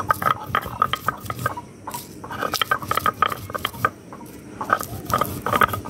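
Stone muller grinding dry-fried red chillies on a flat stone slab (shil): repeated gritty, crackling scraping strokes in bursts as the brittle chillies are crushed into a coarse paste.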